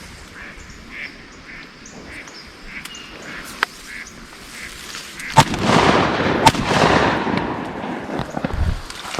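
Ducks quacking in a quick run of short calls, about two a second. About five seconds in, a sharp loud bang is followed by a rush of noise, with a second sharp crack about a second later.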